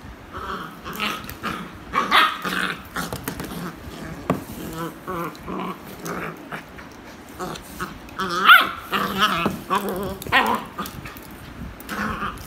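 Beagle growling and barking in play, a string of short growls and barks with the loudest about two seconds in and again around eight and a half seconds. This is playful noise over a toy, not aggression.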